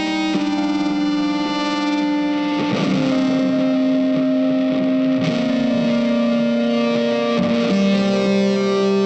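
Music led by a sustained electric guitar with effects, holding long notes that change pitch every second or two.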